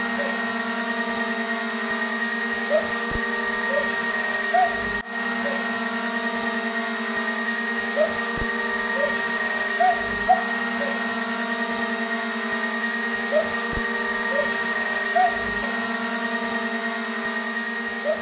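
Steady motor-like hum made of several fixed tones, dipping briefly about five seconds in, with faint short blips and soft knocks now and then.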